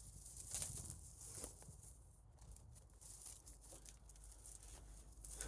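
Faint footsteps crunching and rustling through dry forest-floor litter, a few irregular crackles, most of them in the first second and a half.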